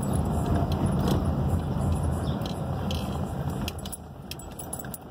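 Car driving on a town street, heard from inside the cabin: a steady low engine and tyre rumble that drops in level about four seconds in, with light rattling clicks near the end.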